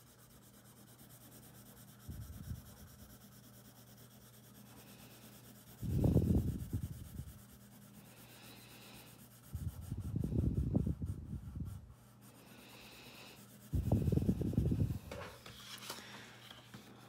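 Coloured pencil rubbing across paper in several bursts of shading strokes a few seconds apart, with the sheet slid round on the table near the end.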